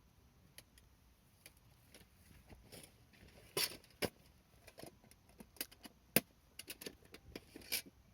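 Wood campfire crackling in a folding fire pit: irregular sharp pops and snaps, sparse at first, then denser and louder through the second half.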